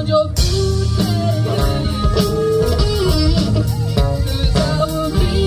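Live rock band playing: electric guitar to the fore over bass, keyboards and drum kit.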